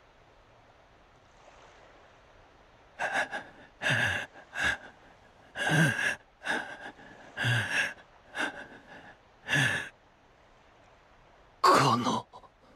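A man's voice gasping and crying out in pain in short, breathy bursts, about eight over several seconds, then one more cry near the end.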